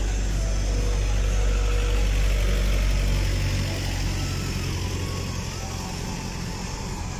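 A motor vehicle's engine running close by: a deep, steady rumble that is loudest over the first three seconds or so and then eases off.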